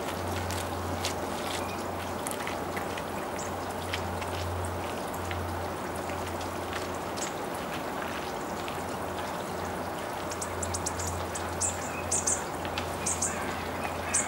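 Bushtits' tiny, very high contact calls: short thin notes, scattered at first and coming in quick clusters over the last few seconds, over a steady low rumble and hiss.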